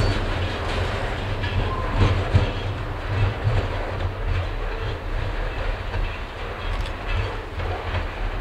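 Cascade and Columbia River Railroad freight train rolling past, its wheels clicking over the rail joints over a steady low rumble.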